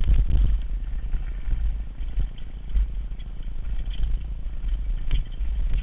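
Wind rumbling over the microphone as a mountain bike rolls down a rough dirt singletrack, with the bike rattling and clicking over bumps in the trail.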